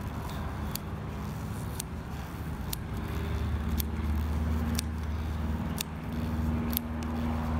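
A steady low machine hum, with faint sharp ticks about once a second.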